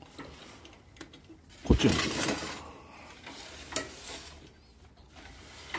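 A towel rubbed and scrubbed across a plywood cage floor, wiping up cat urine, with one louder bump a little under two seconds in.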